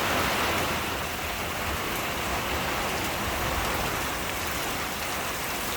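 Heavy rain drumming steadily on a metal patio roof in a downpour, a dense, even hiss with no let-up.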